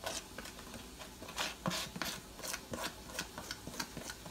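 A utensil scraping thick brownie batter out of a plastic container, in a quick irregular series of scrapes and taps.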